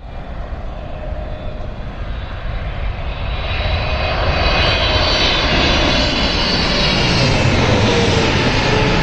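Jet airliner on landing approach, its engines growing louder over the first few seconds into a steady rush with a high whine, and a lower tone falling slowly in pitch near the end as it passes.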